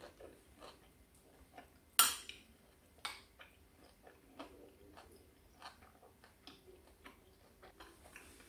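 Metal spoon clinking against a ceramic bowl while eating, a sharp clink about two seconds in and another about a second later, with faint chewing and small mouth clicks in between.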